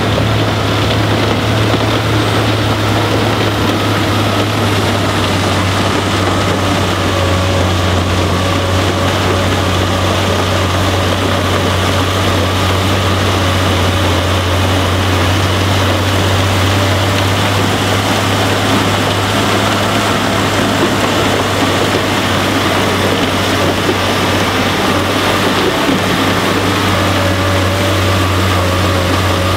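Volvo L70F wheel loader with a front-mounted Øveraasen UTV 200H snowblower working hard, blowing snow from a bank up the chute into a truck. A steady, heavy machine drone under a continuous rush, with a faint whine that comes and goes.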